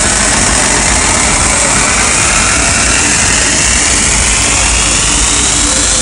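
Hardcore techno played loud over a festival sound system, heard as a dense, harsh wash of noise with a sweep rising in pitch through the second half, typical of a build-up before the beat returns.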